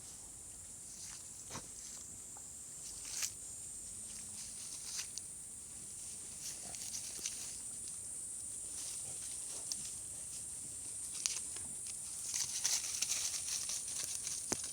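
Scattered rustles and crackles over a steady high-pitched hiss, getting denser near the end.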